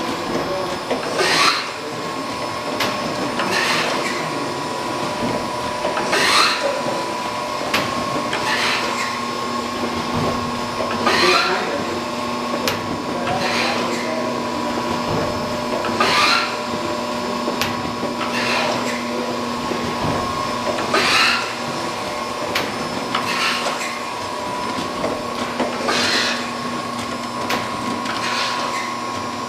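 Okamoto PSG-205 hydraulic surface grinder running, with a steady whine from the wheel spindle and hydraulic drive. A short burst of noise comes about every two and a half seconds as the table reverses at each end of its stroke, every other one louder.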